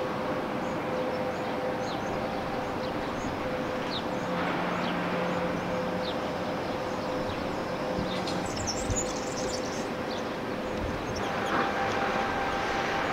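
Steady mechanical hum and rumble, with a few short bird chirps over it.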